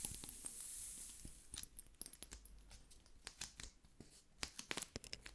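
Close-miked ASMR trigger sounds: a soft high brushing hiss for about the first second and a half, then scattered crisp clicks and crackles.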